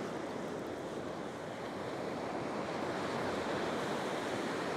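Surf washing and breaking on an ocean beach in a steady rush, with some wind on the microphone.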